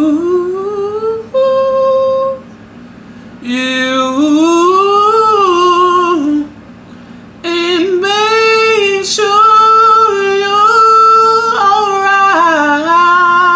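A single voice singing unaccompanied, in long held and sliding notes without clear words, in four phrases with short pauses between.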